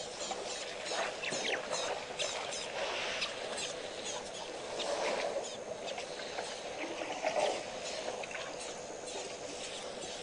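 Waterhole ambience: many short, high chirps and ticks coming quickly and irregularly over a steady outdoor background, with a faint steady hum.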